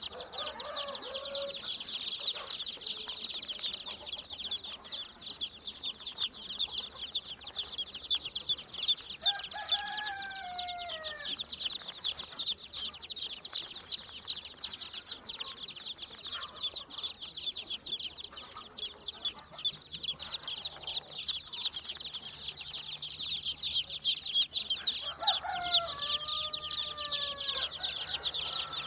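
Chickens: a continuous dense chorus of rapid high-pitched peeping, with a hen's drawn-out falling calls about a second in, around ten seconds and again near the end.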